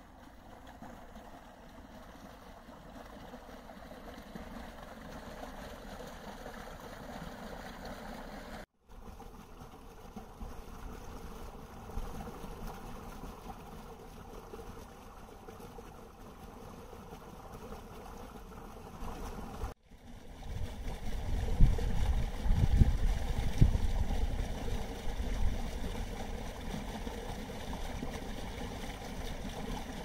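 Small brook running and babbling steadily over stones. The sound cuts out briefly twice. From about two-thirds in, low gusty rumbles of wind on the microphone become the loudest part.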